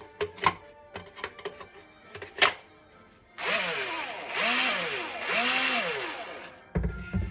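A few sharp clicks and knocks, then a small electric motor whirring in three short bursts, its pitch rising and falling each time. Low thumps near the end.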